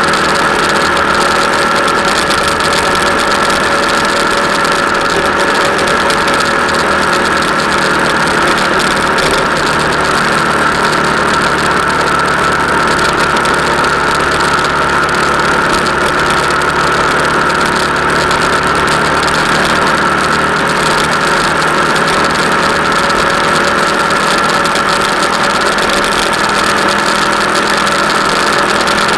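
Vehicle engine running at a steady cruising speed with road and wind noise, a constant drone with a steady whine that neither rises nor falls.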